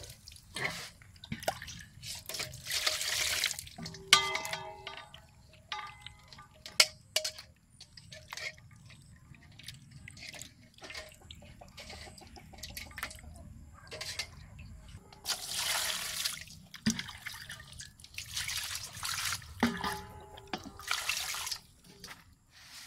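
Water splashing and sloshing in a stainless steel basin as a gutted water snake is rinsed by hand. There are several short bursts of pouring or splashing and scattered knocks and clicks against the metal.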